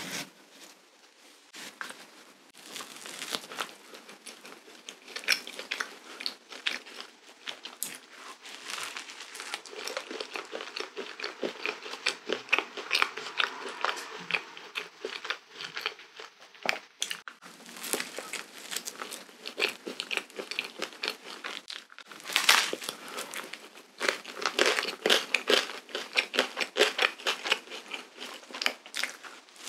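Close-miked eating sounds of a cream-filled waffle being bitten and chewed: a dense run of crisp crunching and crackling, with a loud burst of crunching about two-thirds of the way in.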